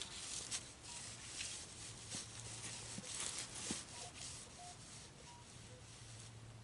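Faint rustling and scratching of metal detecting in brush: footsteps and the search coil brushing through ground cover, with a few very brief, faint beeps.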